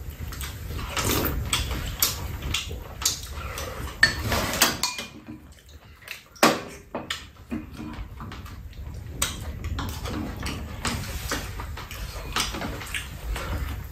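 Eating at a table: spoons and chopsticks clinking and scraping against bowls, a pot and a metal tray in irregular clicks, with chewing between them.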